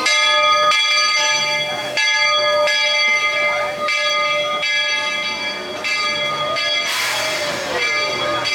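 Steam locomotive's bell ringing in a steady run of repeated strikes as the train stands at the station. About seven seconds in, a loud hiss rises over it, typical of steam being let out.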